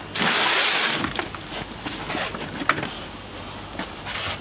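Oven tray scraping as it slides out, carrying clay-wrapped chickens that have finished baking. A loud scrape lasting under a second comes first, then scattered knocks and clicks, one sharp click near the middle.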